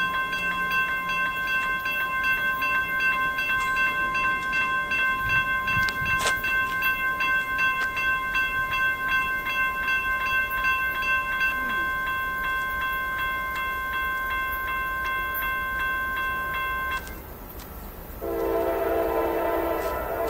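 Railroad crossing warning bell ringing in rapid, even strokes while the crossing gates lower, cutting off about 17 s in once the gates are down. About a second later a diesel locomotive horn sounds a loud, sustained blast.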